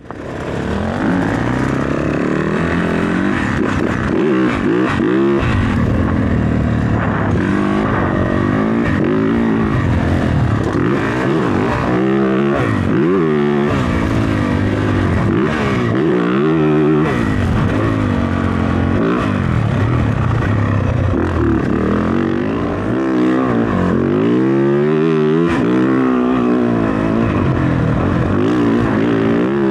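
Motocross dirt bike engine revving hard and backing off over and over, its pitch climbing and dropping as the rider accelerates, shifts and rolls off the throttle, with a short lull about three-quarters through.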